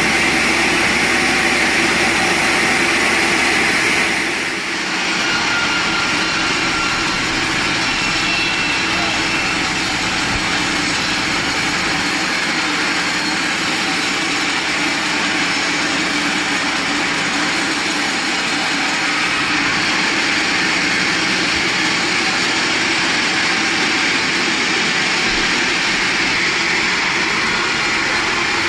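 Sawmill machinery running with a loud, steady drone, dipping briefly about four seconds in.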